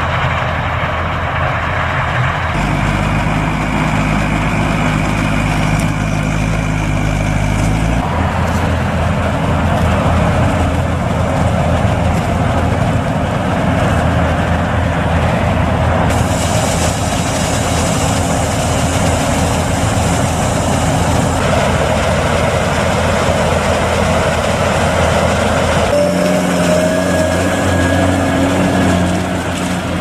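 Heavy farm machinery running: a New Holland CR8.80 combine harvester working through maize, with a Fendt Vario 820 tractor and tipping trailer driving alongside. The steady engine and machine sound shifts abruptly several times as the shots change.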